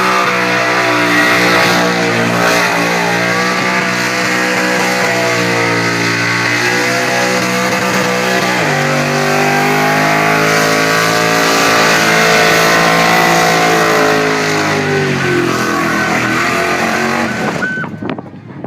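Holden VX SS Commodore's 5.7-litre V8 held at high revs during a burnout, over the hiss of spinning, smoking rear tyres. The engine note steps down in pitch about halfway, sags near the end and cuts off shortly before the end.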